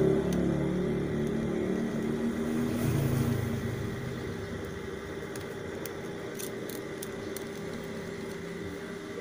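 A motor vehicle's engine passing and fading away over the first few seconds, over a steady low hum. A few faint ticks come near the end.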